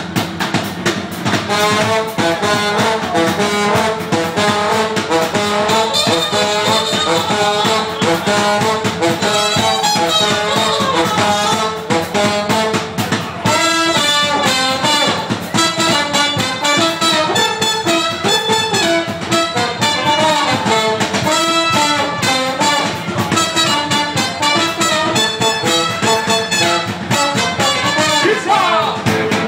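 Live band playing an instrumental passage led by a horn section of trombone and trumpet, with a drum kit keeping a steady beat.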